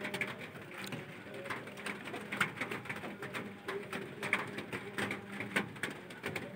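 Metal spatula scraping and clinking against a metal wok in quick, irregular strokes as spice paste and chilies are stir-fried.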